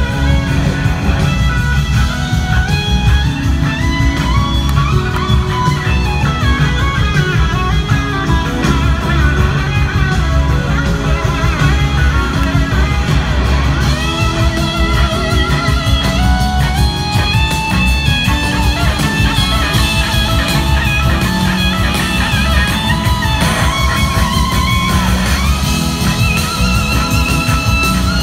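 A live blues-rock band plays at full volume, with an electric slide guitar leading in notes that hold and glide up and down over heavy bass and drums.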